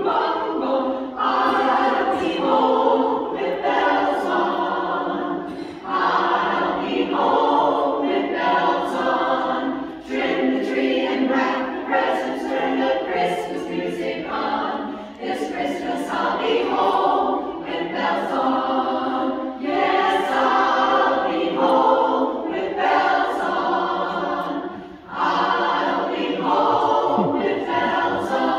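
Women's barbershop chorus singing a cappella in close harmony, in phrases with short breaks between them.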